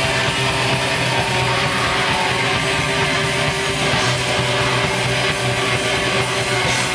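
Black metal band playing live: a continuous, loud wall of distorted electric guitars.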